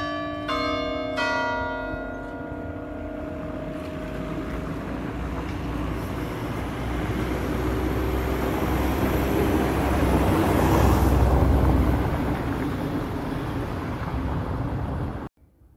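Church bells struck three times in quick succession in the first second and a half, each strike ringing on and fading over a few seconds. A rushing noise then builds up, peaks, and cuts off suddenly near the end.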